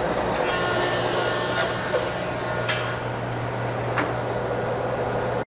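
Thickness planer running steadily with a hum and a high whine while a board feeds through it, with a few sharp clicks. The sound cuts off abruptly near the end.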